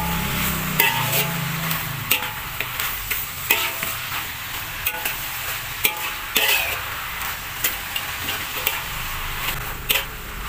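Metal spatula scraping and knocking against a metal wok while stir-frying cabbage, carrot and mustard greens, in irregular strokes about once a second over a steady sizzle.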